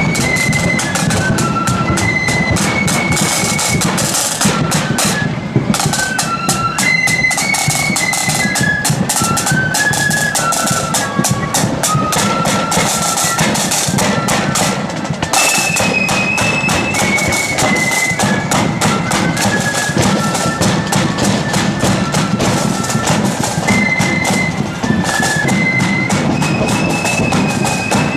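Marching flute band playing a tune: high flutes carry a stepping melody over rapid snare drumming and a steady bass drum beat. The melody comes round again about halfway through.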